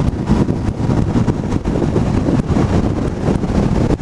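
Heavy wind buffeting on a motorcycle rider's GoPro microphone at highway speed, a loud fluttering rush over the drone of the Honda CBR500's engine.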